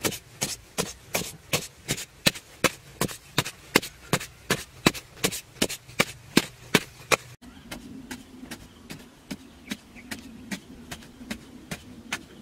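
A digging hoe chopping into dry, clumpy earth in a quick, even run of strikes, about three a second. After a cut about halfway through, the strikes carry on softer over a low steady hum.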